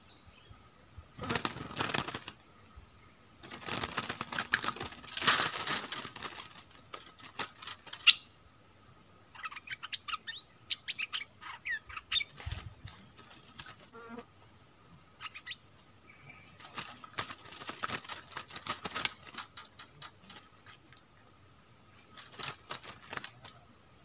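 A bulbul flapping and fluttering its wings in several separate bouts, with short chirps around ten to twelve seconds in. A single sharp click about eight seconds in is the loudest sound, and a steady high tone runs underneath.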